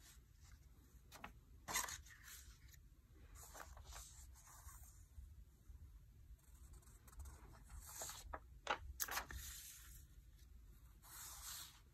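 Faint rustling and sliding of old paper sheets being handled and laid over one another, in a few brief rustles with near quiet between.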